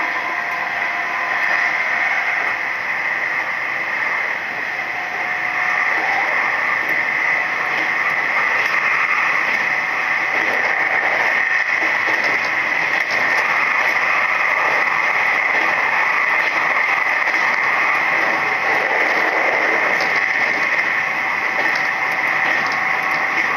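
Steady running noise inside a Nishitetsu 3000 series electric train car at speed: wheels rolling on the rails, an even rushing sound that holds level throughout.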